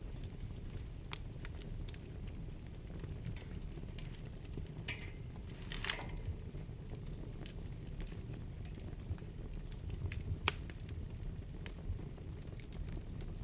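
Wood fire burning in a fireplace: a steady low rumble of flames with scattered crackles and pops. A brief hiss rises around the middle, and one sharper pop comes a few seconds later.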